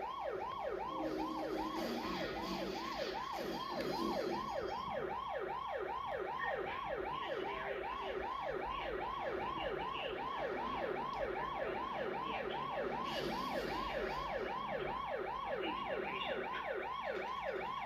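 Ambulance siren sounding continuously in a fast yelp, its pitch sweeping up and down about three times a second.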